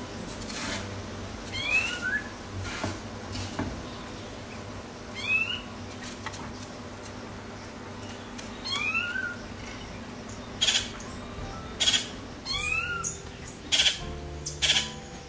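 A bird call repeating about every three and a half seconds: a rising whistled note followed by a lower one. From about ten seconds in there are several short, sharp scrapes or knocks, louder than the calls.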